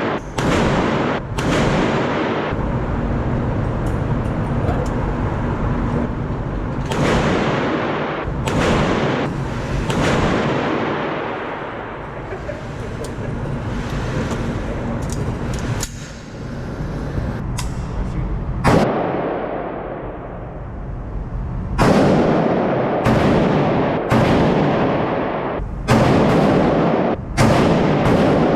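Gunshots on a shooting range: about twenty irregularly spaced shots, each with a long echoing tail that runs into the next. They come in clusters, with a lull in the middle.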